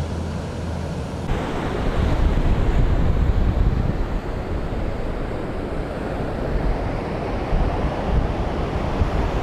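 Ocean surf breaking on a sandy beach, a steady wash of noise, with wind buffeting the microphone. A low steady hum stops about a second in, after which the surf grows a little louder.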